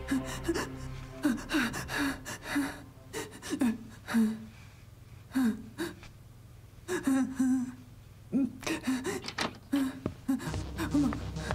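A woman crying hard: sobbing with sharp gasping breaths and whimpers in short, uneven bursts, with a quieter pause around the middle.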